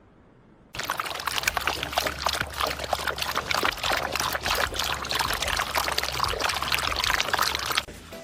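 A dense rush of pouring, splashing water with many small crackles through it, starting abruptly about a second in and stopping shortly before the end.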